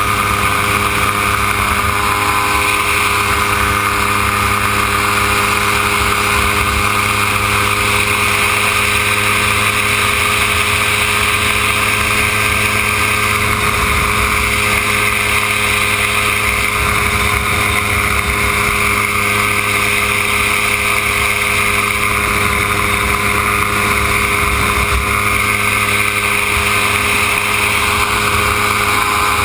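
Dominator gyroplane's engine and pusher propeller droning steadily in level flight, heard from an onboard camera with wind rushing over the microphone.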